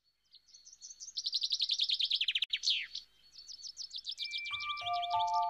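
A songbird singing rapid trills of quick high chirps, each run falling in pitch, with one downward sweep in the middle. Near the end, ringing mallet-instrument notes of music come in.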